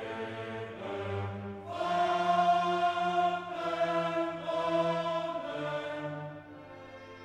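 Background music of slow, long held notes, fading briefly near the end.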